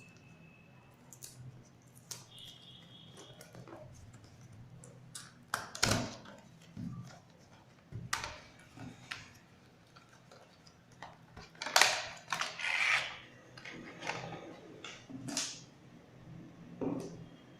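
Earphone packaging being handled and opened: scattered clicks, taps and short rustles, the loudest about six seconds in and again around twelve to thirteen seconds in.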